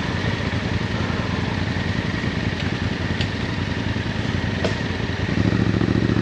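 Yamaha Ténéré 700's parallel-twin engine running steadily at low revs off road, then opening up louder about five seconds in. Two sharp clicks come in the middle.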